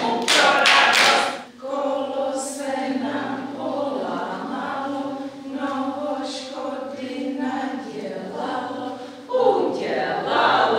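A few hand-drum beats on a djembe, then a group of voices singing a slow children's song together in long held notes. Near the end the singing gives way to louder mixed voices.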